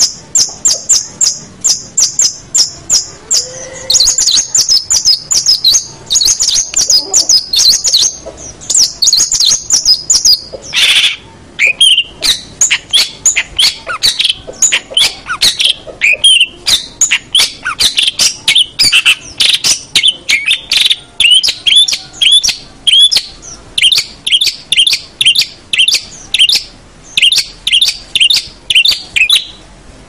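Long-tailed shrike (cendet) singing a fast, steady run of repeated high chattering notes, several a second. About ten seconds in, the song changes to a lower string of short slurred notes.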